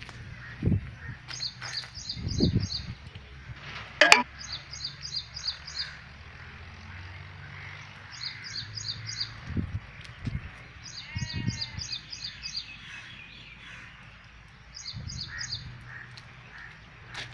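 A small bird calling in short bouts of four or five quick high chirps, repeated every few seconds, over low rumbles of wind on the microphone. One sharp click sounds about four seconds in.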